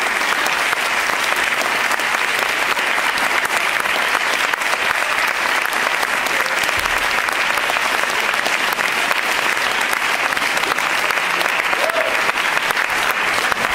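Audience applauding steadily: dense, sustained clapping from a large crowd of hands.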